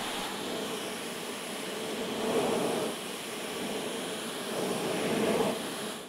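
Dyson cordless vacuum running with the Pet groom tool, a steady whooshing rush of suction that swells louder twice.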